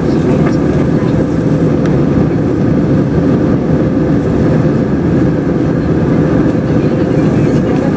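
Cabin noise inside an Airbus A321-200 airliner: a steady, loud engine rumble with a constant hum.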